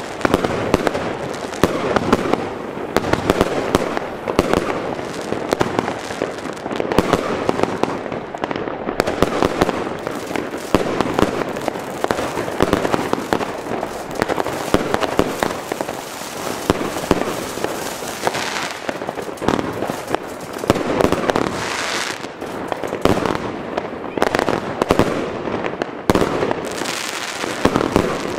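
ChinaRed 'Bulldozer' 116-shot compound firework cake firing: a rapid, unbroken barrage of launches and bangs with crackle, shot after shot overlapping.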